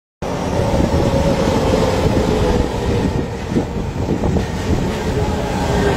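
Electric commuter train approaching and pulling into the platform: a steady rumble of steel wheels on rails with a humming tone.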